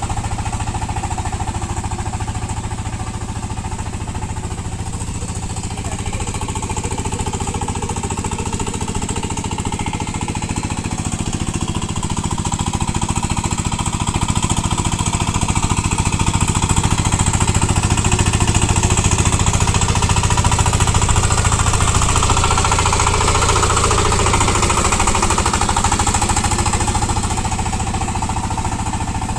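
VST power tiller's single-cylinder diesel engine running under load with a rapid, even chugging while puddling mud. It gets somewhat louder about halfway through and eases off near the end.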